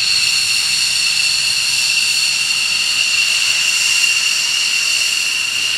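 F-16 fighter's turbofan engine whining steadily as the jet taxis past, two high, unchanging tones over a roar.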